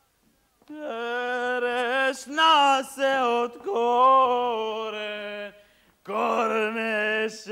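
A single voice singing unaccompanied in long, drawn-out phrases with wavering, ornamented pitch. It starts under a second in and breaks off briefly between phrases.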